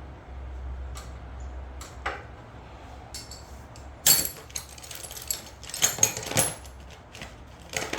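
Metal clicks and clanks of hand tools and parts being handled on a mower, irregular, with the sharpest clank about four seconds in and a cluster of clanks around six seconds, over a steady low hum.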